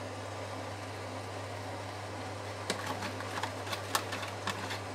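A fork scraping and tapping beaten egg out of a small plastic container into a bowl of stuffing: scattered light clicks and scrapes from about halfway through, over a steady low hum.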